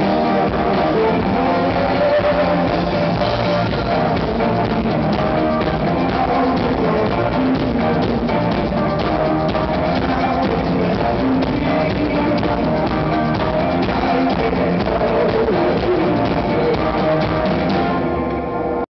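Rock band playing live with drum kit and guitar, loud and steady; the sound thins out slightly in the last second.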